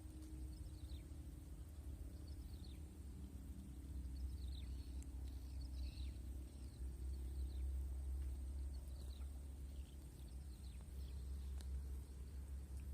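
Outdoor ambience of a steady low rumble, with faint birds calling over it in short falling chirps every second or two and a thin, steady high insect-like tone.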